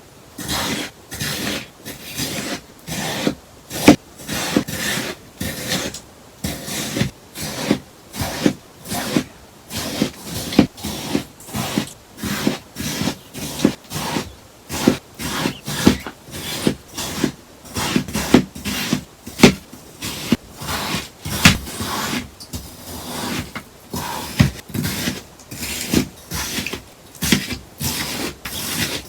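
Scissors cutting through a sponge in a steady run of crisp snips, roughly one to two a second.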